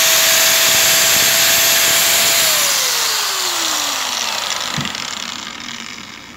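An electric motor-driven appliance runs with a loud hiss and a steady whine, then is switched off about two seconds in. Its whine falls in pitch and the sound fades as it spins down over about four seconds, with a small knock near the end.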